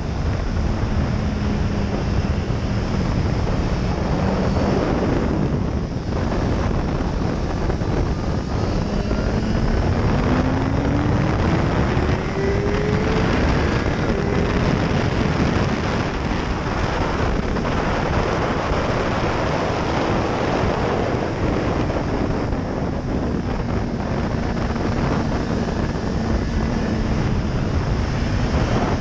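BMW S1000RR inline-four sportbike engine at speed on track, mostly buried under heavy wind rush on the microphone. The engine note holds steady, breaks off about five seconds in, climbs steadily from about nine seconds in, then falls away again from about twenty seconds in.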